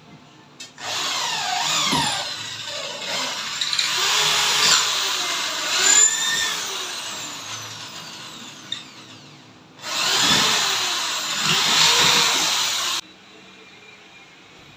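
Cordless drill working into a wooden frame, its motor whine rising and falling in pitch. It runs in two long bursts: one of about nine seconds, then after a short break one of about three seconds that cuts off suddenly.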